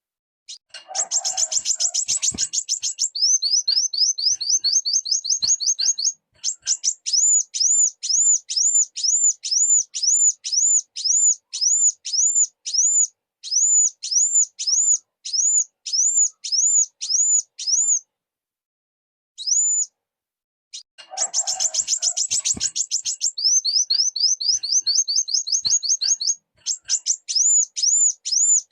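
Kolibri wulung (a sunbird) calling: a fast, dense rattle of high chirps, then a quicker run of slightly lower notes, then a long series of sharp, high rising notes at about two a second. After a pause of about three seconds the same sequence starts again.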